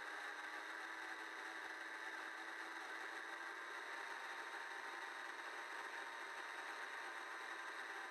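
Small motor of a radio-controlled boat running steadily, a constant high whir over a hiss, heard from the camera on board.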